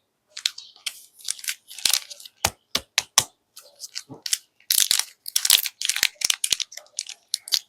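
Plastic candy wrapper crinkling and tearing open as sweets are unwrapped, in quick irregular bursts with a few sharp snaps.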